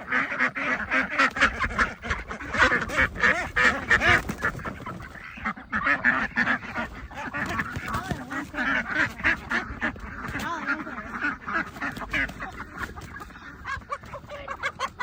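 Poultry calling noisily, a dense, continuous run of short, harsh calls, as birds are caught and handled.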